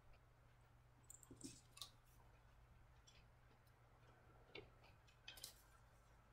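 Near silence, with a few faint soft clicks and rustles of a sheet of paper being handled and folded by hand.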